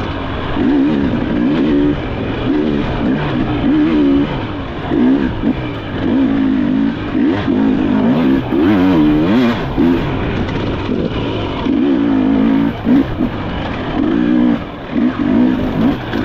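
Off-road motorcycle engine revving up and easing off over and over, its pitch rising and falling every second or so, with brief drops where the throttle is shut.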